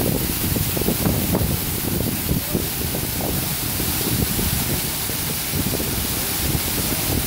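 Small waterfall pouring over boulders and down a rock face: a steady rush of falling, splashing water.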